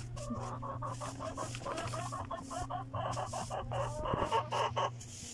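Chickens clucking in quick, busy runs of short calls, over a soft rhythmic hiss of powdered lime being shaken out of a plastic bottle.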